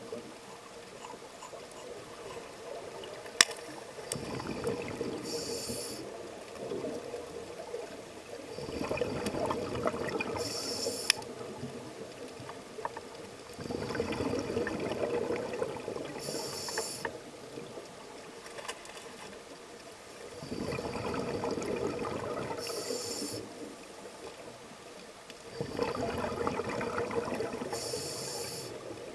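Scuba diver breathing through a regulator underwater: about five slow breath cycles, roughly six seconds apart, each a few seconds of rushing bubbles ending in a short high hiss. A sharp click about three seconds in.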